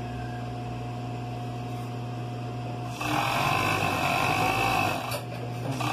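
A steady electric hum, then about three seconds in a Siruba industrial overlock machine starts running at speed, stitching and trimming a knit seam. It stops briefly near the end and starts again.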